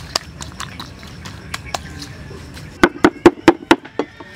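Faint wet clicks of hands mixing food in a wok, then, near the end, a cleaver mincing meat on a wooden chopping board: about eight quick, loud knocks in just over a second.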